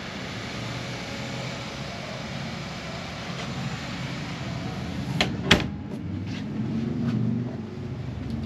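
Two sharp knocks about a third of a second apart, about five seconds in, as a wooden interior door is pushed shut, over a steady low mechanical hum.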